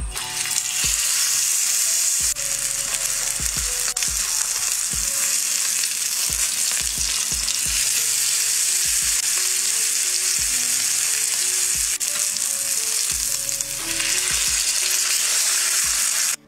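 Ribeye steak searing in hot oil in a cast-iron skillet: a loud, steady frying sizzle that begins as the steak goes into the just-smoking oil.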